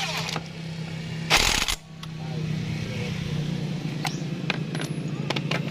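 A short, loud burst from a power tool, most likely an impact wrench, on the clutch-bell nut of a scooter's CVT. It comes about a second and a half in, over a steady low mechanical hum, with a few sharp clicks later on.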